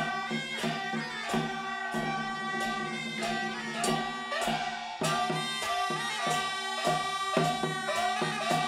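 Live traditional Taiwanese puppet-theatre music: a sustained melody of long held notes over regular percussion strikes, which come faster, about three a second, in the second half.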